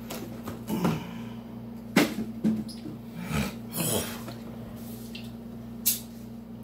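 Handling noise as a plastic water jug is capped and moved: about six short squeaks, clicks and knocks, spread out, over a steady low hum.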